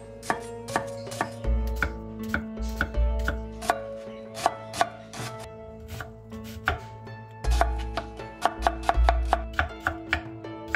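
A chef's knife dicing a red onion, the blade knocking on a wooden cutting board in quick, uneven strokes, about three a second.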